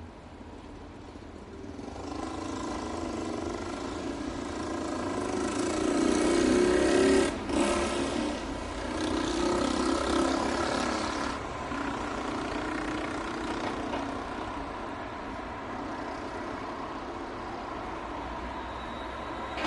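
Street traffic: a heavy vehicle's engine swells as it passes close by, loudest about six to seven seconds in, then fades away, leaving a steady traffic hum.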